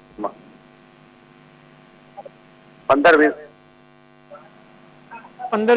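Steady electrical mains hum on a telephone call-in line, with a short burst of a voice about three seconds in.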